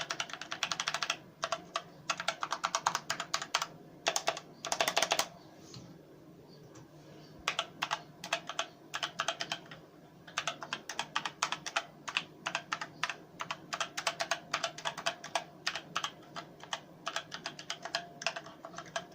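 Typing on a ZET GAMING Blade K180 mechanical keyboard with Kailh Red linear switches. The keys are struck in quick runs and bursts, with a pause of about two seconds near the middle. The clatter is not especially loud.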